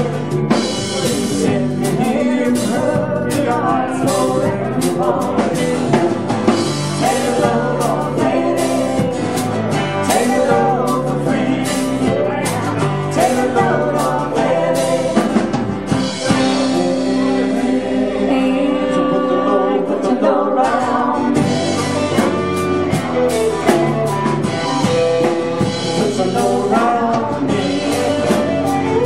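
Live band music: acoustic and electric guitars over a drum kit, with singing.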